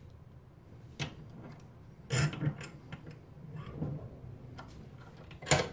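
Metal clicks and clanks of a Clarke brake pipe flaring tool's steel bar being set into a bench vise while the vise handle is turned to clamp it. There is a cluster of knocks just after two seconds in and a single sharp clack, the loudest, near the end.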